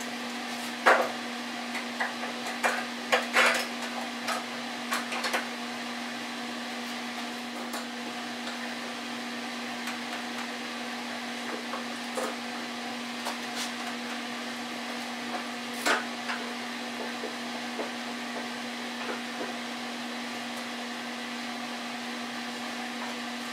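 Bar clamps and wooden boards knocking and clicking as the clamps are set and tightened on an edge-glued tabletop, a quick run of knocks in the first few seconds, then scattered ones and a louder knock about two-thirds through. A steady hum runs underneath.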